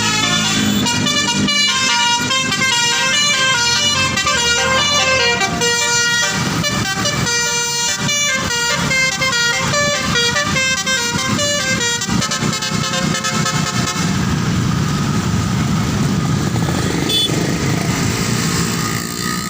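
Indonesian bus 'telolet' multi-tone horn (basuri type) playing a quick stepping melody for about twelve seconds, then rumbling vehicle noise with a few held horn tones.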